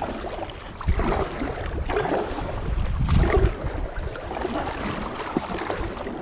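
Kayak being paddled: the paddle blades dip and splash in the water in a run of strokes about once a second, with wind buffeting the microphone.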